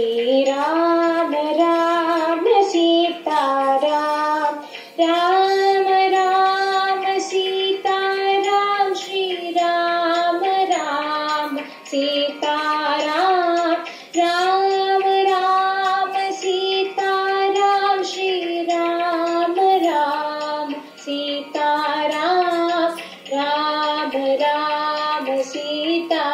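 Female voices singing a Carnatic devotional song in long held notes that glide between pitches, phrase after phrase with short breaks. The recording plays back thin, with almost no bass.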